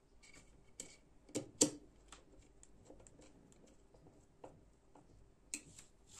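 Small metallic clicks and taps of a Torx precision screwdriver working a pocket-clip screw on a folding knife. A run of faint quick ticks falls in the middle, and louder clacks come about a second and a half in and again near the end.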